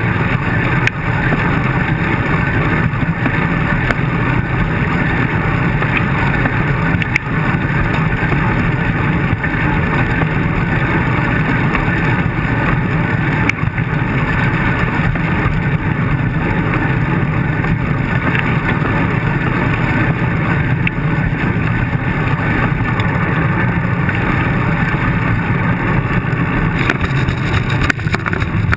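Steady rumble of wind and tyre noise picked up by a handlebar-mounted camera on a road bike while riding, with a few faint knocks.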